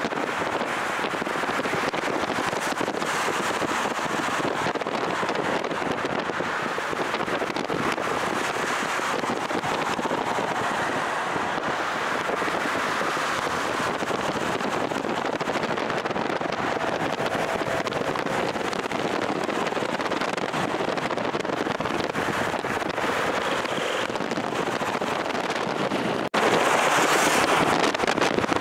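Heavy wind buffeting on the camera's microphone from a car moving at highway speed, a steady rushing noise. It cuts out briefly about 26 seconds in and comes back louder.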